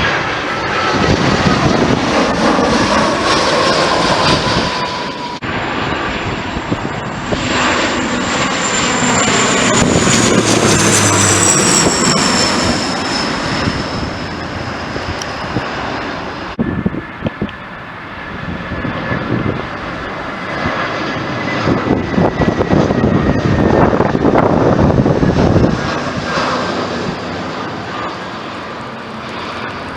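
Airliner engines running loud as aircraft pass, with a high engine whine that slides down in pitch. The sound breaks off and changes abruptly twice.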